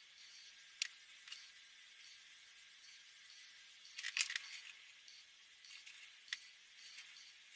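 Faint scratching of an alcohol marker's nib on paper, with a few sharp light clicks and a short clatter of markers being handled about four seconds in.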